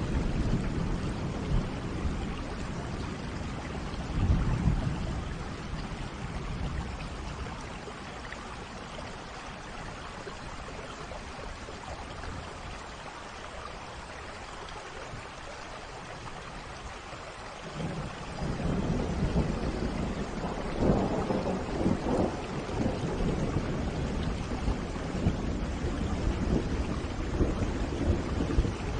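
Rain falling with thunder rumbling: a rumble about four seconds in, a quieter spell of steady rain, then longer, louder rolls of thunder from about eighteen seconds on.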